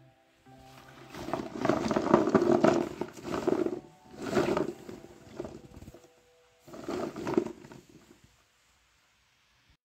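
Round dalle chillies rustling as a hand stirs through a heap of them in a plastic tub. The sound comes in three bursts, the first and longest lasting a few seconds, and stops about eight seconds in.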